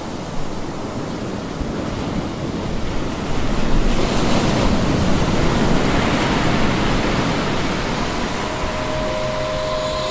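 Water rushing and splashing past the bow of a J35 sailboat under sail, with wind on the microphone; the rush grows louder about four seconds in.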